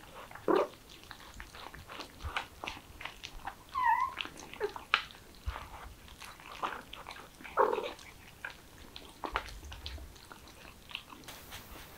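Kittens and their mother cat chewing and biting at chicken, a steady scatter of small wet clicks and crunches, with one short kitten mew about four seconds in.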